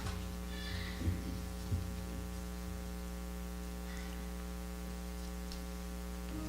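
Steady electrical mains hum from the sound system, with a couple of soft thumps a little after a second in and just before two seconds.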